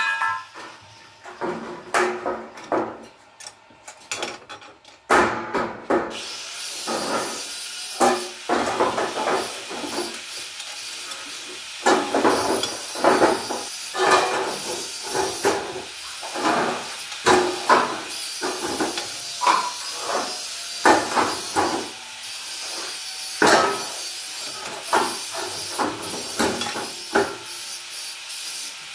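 Bent sheet-steel panels clattering and scraping as they are laid one after another into a welded steel gate frame, with many sharp, irregular knocks. A steady hiss runs underneath from about six seconds in.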